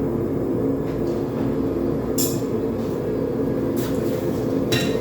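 Propane forge burner running with a steady roar, with three sharp, ringing metal clinks of steel on steel about two, four and five seconds in.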